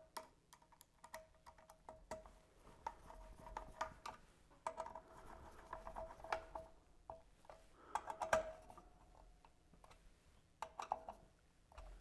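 A hand screwdriver turning small screws into the light-kit cover plate of a Hunter ceiling fan: faint clicks and ticks with short squeaks, the loudest run about eight seconds in.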